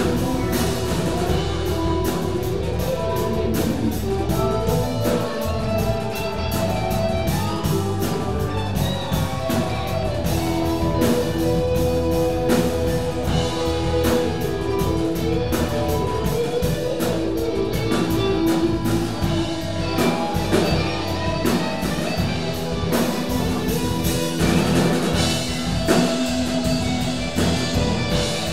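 Live band playing an improvised rock jam: two electric guitars, electric bass, keyboard and drum kit, with sustained melodic lines over a steady drum beat.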